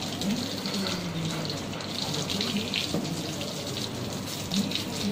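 Water from a garden hose spraying steadily onto a wet dog's coat and splashing onto the concrete floor.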